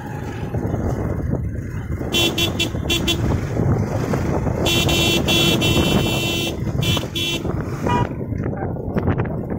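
A vehicle horn honking: a few short beeps about two seconds in, then a longer blast and more beeps from about five to seven and a half seconds, over the steady rumble of engine and road noise while riding.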